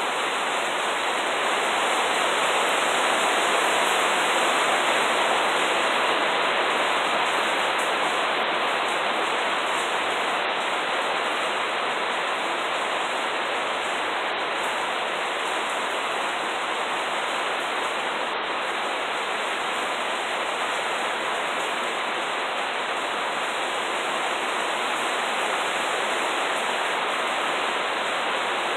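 Steady rain falling, an even rushing hiss that does not let up.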